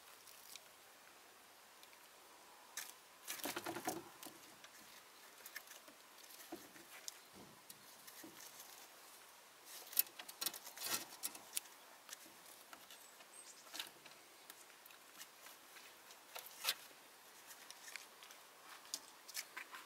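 Faint patter, scratches and light taps of kittens' paws and claws scrabbling on concrete and against a glass pane, in irregular bursts, with louder clusters about three and a half seconds in and again around ten seconds.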